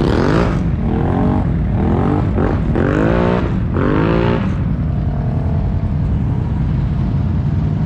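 ATV engine revving in five quick rising blips over the first four seconds or so, over a steady low engine rumble.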